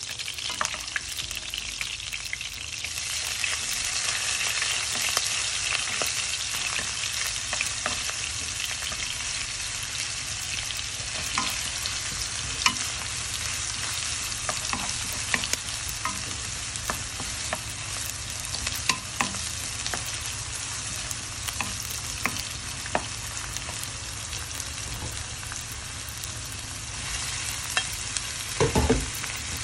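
Garlic, onion and ginger sizzling in hot oil in a nonstick wok, stirred with a wooden spatula that scrapes and taps the pan. The sizzle grows louder a few seconds in, and near the end there is a heavier thud as squid are added to the pan.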